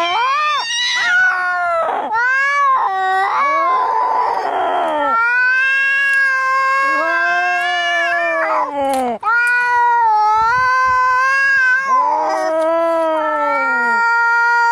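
Two cats caterwauling in a fight: long, wavering, overlapping yowls at different pitches, broken by a harsh hiss about four seconds in.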